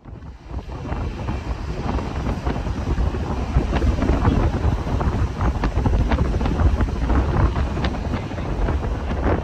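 Wind rushing and buffeting against a microphone held out the window of a NueGo electric bus moving at highway speed, with a deep rumble and crackling gusts. It fades in from silence over the first second.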